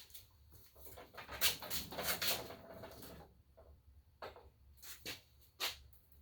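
Rattling and scraping as the folding miter saw stand is handled and rocked, followed by several separate sharp knocks and clicks.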